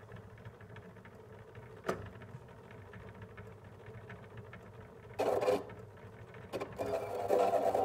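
Reginaphone phonograph's reproducer being set onto a spinning record: a short click about two seconds in, then from about five seconds in the scratchy rasp and crackle of the needle riding the groove, coming in louder irregular bursts near the end.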